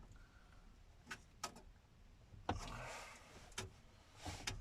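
Faint handling sounds of a car stereo being worked into its dashboard mounting cage: a few sharp plastic-and-metal clicks and two short scraping rubs.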